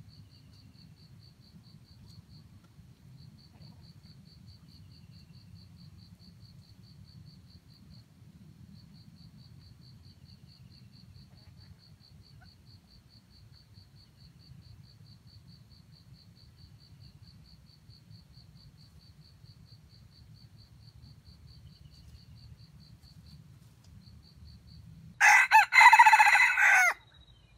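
A junglefowl rooster crows once, a loud, short crow of about two seconds near the end. Beneath it a faint insect trill pulses steadily and high.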